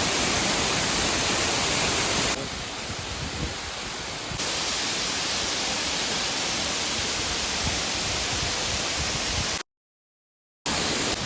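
Steady rushing hiss spread evenly from low to high pitch, with no distinct events. It steps down quieter for about two seconds early on, then returns, and cuts to a second of total silence near the end before resuming.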